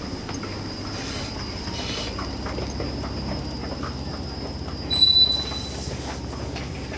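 Escalator running with a steady low rumble and faint rattle. About five seconds in comes a brief, loud, high-pitched squeal.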